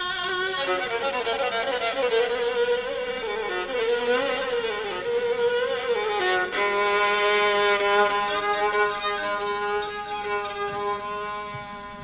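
Background music: a solo violin playing a slow, wavering melody that settles into a long held note about halfway through.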